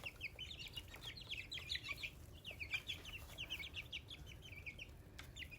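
A small flock of young chicks peeping: a steady run of short, high, falling peeps, several a second, from more than one bird.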